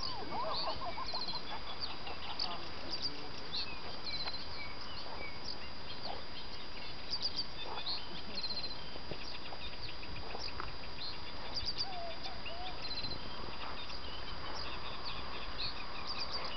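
Small birds chirping and singing again and again over a steady low rumble, with a few lower wavering calls near the start and once more about two-thirds of the way through.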